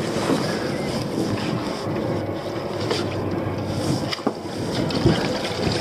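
Pot rope hauled by hand into a dinghy, gloved hands rubbing and pulling on the rope, with wind noise on the microphone. A couple of short knocks come near the end.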